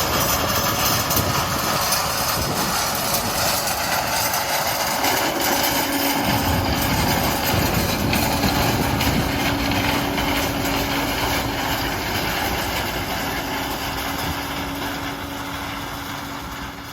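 John Deere 9610 Maximizer combine running and harvesting corn with its 893 corn head: dense, steady machine noise, joined about a third of the way through by a steady hum, fading out near the end.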